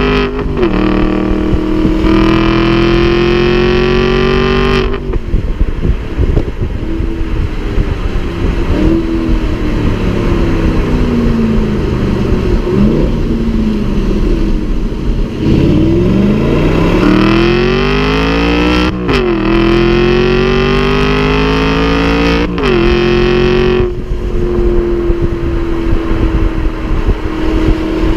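Aston Martin V8 Vantage's 4.3-litre V8 pulling up through a gear, lifting off about five seconds in so its pitch falls and wavers with brief revs, then accelerating hard again through two upshifts before settling to a steady cruise.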